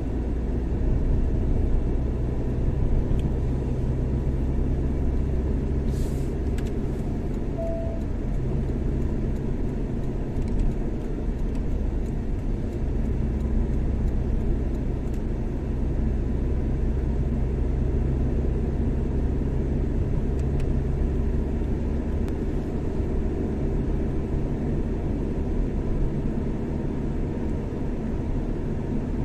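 Car driving on a highway: a steady engine and road rumble, with one sharp click about six seconds in.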